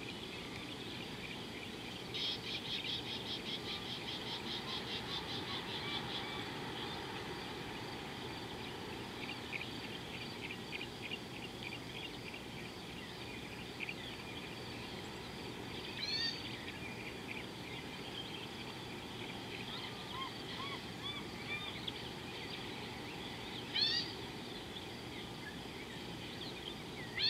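Wild birds calling over a steady outdoor hiss: a fast, rattling trill of rapid notes about two seconds in that runs for about four seconds, a softer trill after it, and a few short, sharp down-slurred calls, the loudest near the end.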